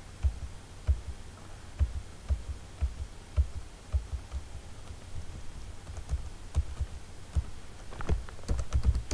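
Computer keyboard typing: irregular single keystrokes, each a short click with a dull thud, turning into a quicker run of keystrokes near the end.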